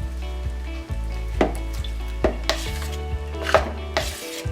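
Cake batter being mixed in a bowl: several short scrapes and knocks of the utensil against the bowl, about one a second, over steady background music.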